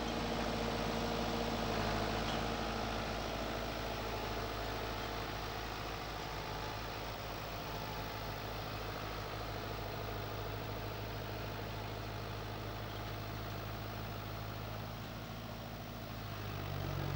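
Kubota tractor's diesel engine running steadily at low revs while the tractor slowly manoeuvres a trailer; the engine note rises briefly near the end.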